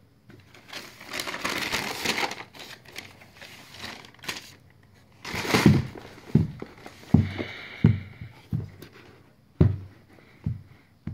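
Tissue paper crinkling and rustling as a sneaker box is unpacked, loudest in the first few seconds. It is followed by a string of soft thumps and knocks as the box and shoes are handled.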